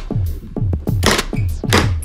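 Background electronic music with a fast, steady drum-machine kick beat, about four kicks a second, over high ticking percussion, with two whooshing noise sweeps in the second half.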